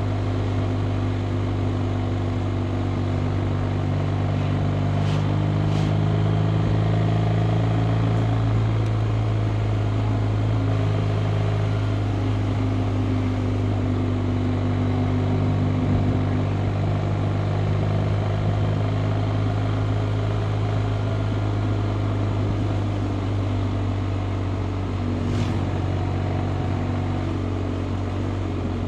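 BMW R 1250 RT's boxer-twin engine running steadily while the motorcycle cruises, its pitch drifting slightly as the throttle changes, with a steady rush of wind and road noise.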